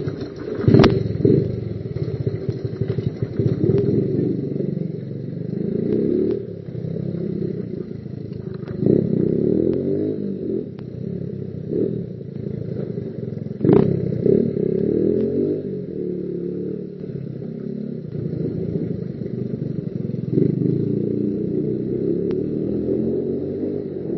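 Motorcycle engine running on the move, its pitch rising and falling as the throttle opens and closes, with a couple of sharp knocks.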